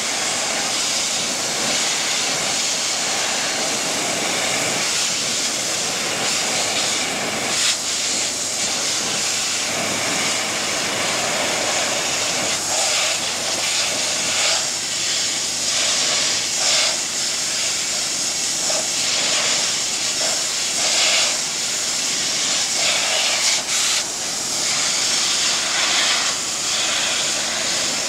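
Densin high-pressure washer spraying: a loud, steady hiss of the water jet striking the metal grating, swelling and dipping a little now and then.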